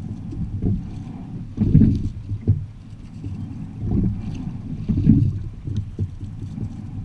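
Quad sculling shell under way: wind on the microphone and water along the hull make a low rumble that swells and fades every second or so, with faint ticks.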